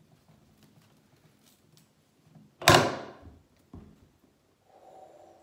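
A heavy elephant ear bulb set down on a wooden table with one loud thump about halfway through, followed by a lighter knock about a second later.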